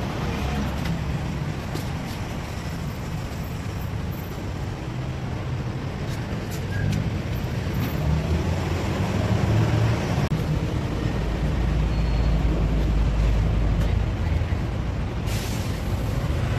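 Steady street traffic rumble, with a heavier low engine rumble of a passing vehicle swelling about two-thirds of the way in and a short hiss near the end.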